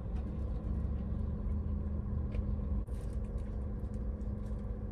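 Steady low hum of a running car, heard inside the cabin, with a few faint clicks and rustles as food is handled from a plastic tray.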